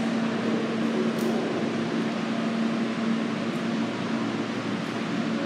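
Alstom R160A-2 subway train standing at the platform with its equipment running: a steady rush like air conditioning with a constant low hum underneath.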